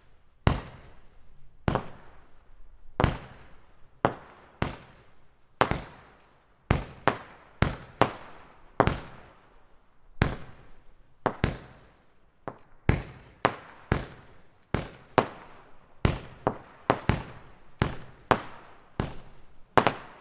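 Pyroland 'Herz und Himmel' 31-shot fireworks battery firing its shots of red crossette stars and silver glitter pots: a long, irregular run of sharp bangs, about one or two a second and often in quick pairs, each trailing off briefly.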